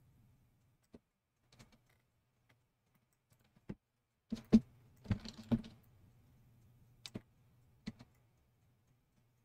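Scattered clicks of a computer mouse and keyboard, some single and some in quick little clusters, over a faint low hum.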